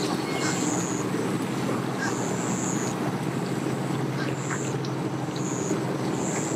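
A steady low engine hum runs under short, high-pitched buzzing chirps that come every second or so.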